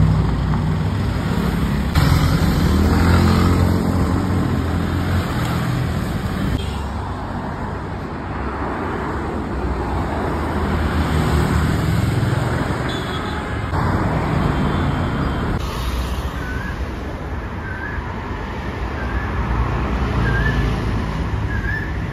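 Road traffic with car engines passing close by, a loud steady street din. The sound changes abruptly several times where short clips are cut together.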